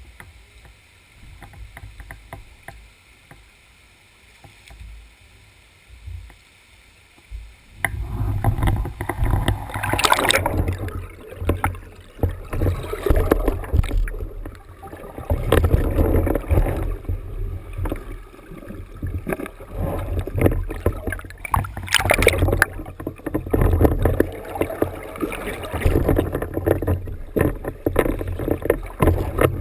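Rough, fluctuating noise of a mountain bike ride, with low rumble and many short rattles and knocks, cutting in suddenly about eight seconds in after a quieter hiss.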